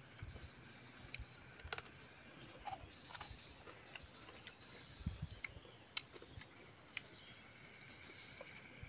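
Faint scattered clicks and light taps from food and utensils being handled at a clay mortar and pestle, with a few soft thuds about five seconds in. A thin, steady high-pitched tone sits under it.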